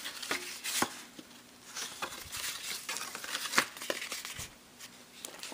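Paper cards and a patterned paper folder being handled, with irregular rustling and crinkling and a few sharp clicks as the cards are moved and the folder is opened and turned.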